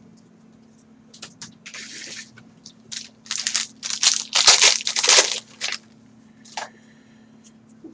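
Foil wrapper of a trading-card pack torn open and crumpled in gloved hands: a string of crinkling, tearing rustles, loudest about three to five seconds in.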